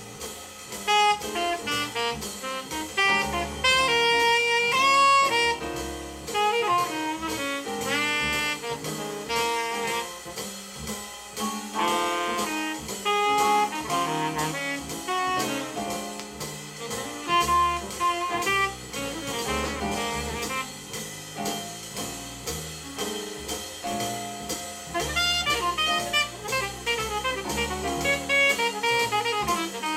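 Jazz record playing on a hi-fi through McIntosh XRT20 loudspeakers: an alto saxophone solos in fast runs that climb and fall, over a drum kit.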